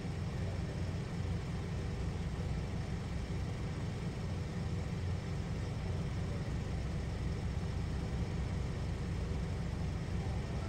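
Steady low rumble of idling vehicles, even and unchanging, with faint steady hum tones above it.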